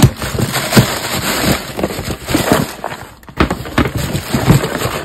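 A cardboard shipping box being handled as cardboard jigsaw puzzle boxes are pulled out of it and set down on a table. Rustling and scraping of cardboard, with frequent short knocks.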